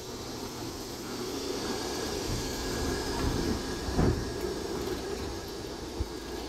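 BR class 08 diesel shunter running as it passes at close range, its English Electric six-cylinder diesel engine growing louder as it draws level, with a single sharp knock about four seconds in.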